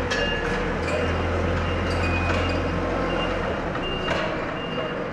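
A forklift's engine running with a steady low hum and its reversing beeper giving short beeps as it backs away from the stack of blocks. The engine hum drops away about three and a half seconds in.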